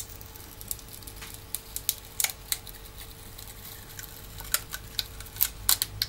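Black adhesive tape being slowly peeled by hand off a tablet's circuit board and ribbon connectors: small irregular clicks and crackles, bunched about two seconds in and again near the end, over a faint steady hum.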